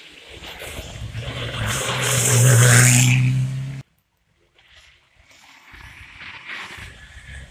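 Rally car engine at speed, growing louder as the car approaches and passes close by, until the sound cuts off abruptly a little past halfway. After a moment of silence the next rally car is heard faintly in the distance, getting louder.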